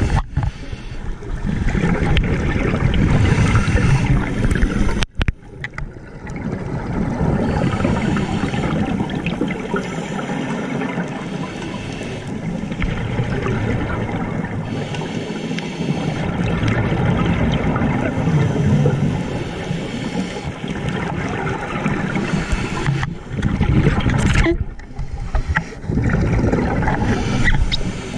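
Underwater noise heard through a camera housing: a scuba diver's regulator and exhaled bubbles rushing and gurgling, with short lulls about five seconds in and twice near the end.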